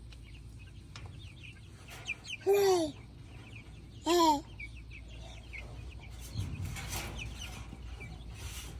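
A flock of meat-bird chicks, almost four weeks old, peeping constantly in quick, high chirps.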